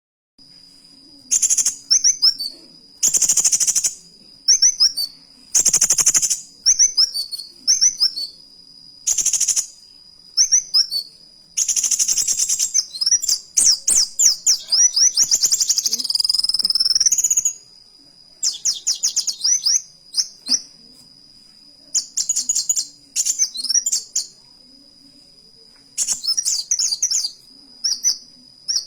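Kolibri wulung (kowul) sunbird singing in full song: loud bouts of rapid, high-pitched chirps and trills a second or two long, with a longer unbroken run of trills around the middle, in the canary-like bursts kowul keepers prize. A steady faint high whine runs underneath.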